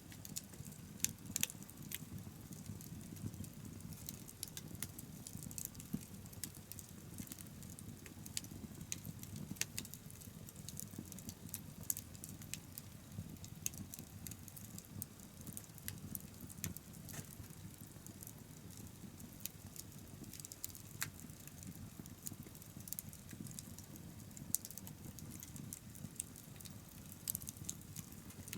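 Open wood fire crackling, with frequent irregular sharp pops and snaps over a low steady rumble.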